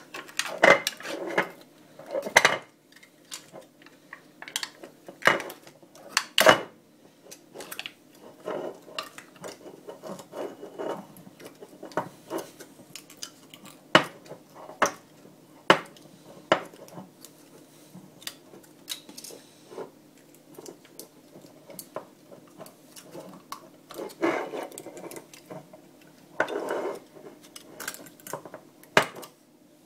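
Foil lid being peeled off a dessert pot and crumpled by hand: irregular crinkling and crackling with sharp clicks, in louder spells near the start and again near the end.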